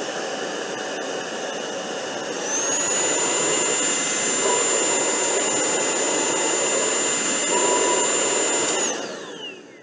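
Tineco PURE ONE S11 cordless handheld vacuum motor running with the pre-filter cleaning tool on its nozzle, drawing dust out of the filter as it is turned in the tool. A steady high whine steps up to a higher, louder pitch about two and a half seconds in, holds, then winds down with a falling whine near the end as the motor is switched off.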